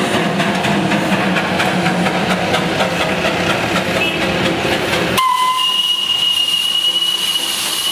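Darjeeling Himalayan Railway 0-4-0 saddle-tank steam locomotive working past, a dense rumbling chuff with rapid beats. About five seconds in, that sound cuts off and a shrill, steady steam whistle sounds over a hiss of steam.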